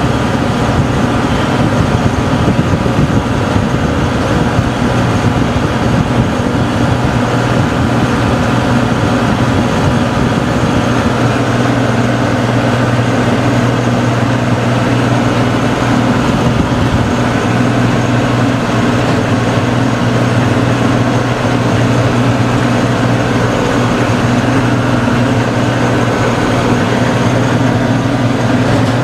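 Tractor engine running steadily under load at a held speed, driving a PTO-powered rotary tiller through wet ground.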